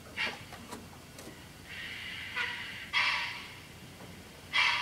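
Loksound sound decoder in an On30 model of a Victorian Railways NA class narrow-gauge steam tank locomotive, playing recordings of a real NA through its small speaker: a few short steam puffs, then longer hisses at uneven gaps, as the model creeps to a stand.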